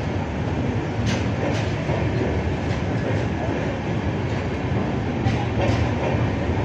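Rajdhani Express passenger coaches rolling along the platform: a steady low rumble of wheels on rail, with a few faint clicks as the wheels cross rail joints.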